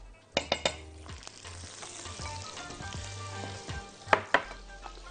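A cube of butter sizzling as it melts in hot oil in a wok, a steady frying hiss. A few sharp clicks come about half a second in and again about four seconds in.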